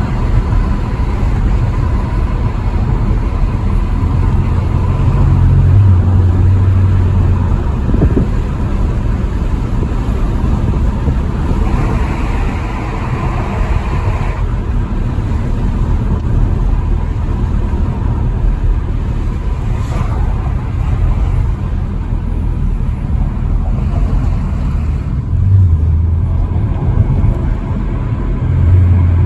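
A Dodge Challenger driving, with steady low engine and road rumble; the engine note swells briefly a few times, about six seconds in and again near the end.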